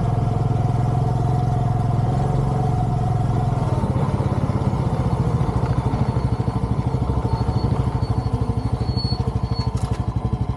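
An engine running steadily with a regular, even pulse.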